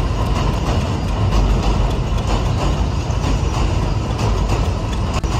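A train running with a heavy, steady rumble, heard together with background music.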